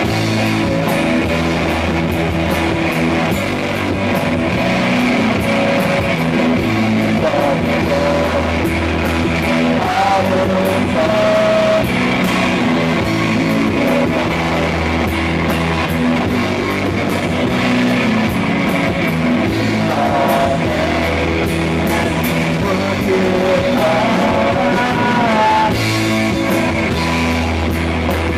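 Rock band playing live: electric bass, electric guitar and drum kit with cymbals, and a male voice singing in places. The recording is loud and somewhat overloaded.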